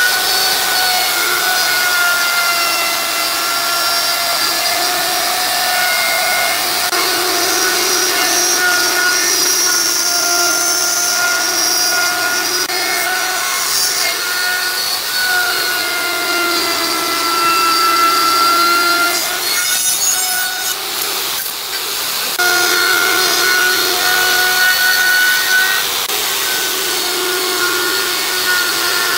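A power saw running and cutting wood. Its motor whine sags in pitch under the cut and recovers, again and again. It breaks off for a couple of seconds about two-thirds of the way through, then starts again.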